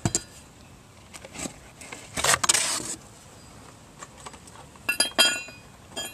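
Car parts being handled in a cardboard box: a sharp knock, then a rustle of packaging, and near the end a quick cluster of ringing metallic clinks.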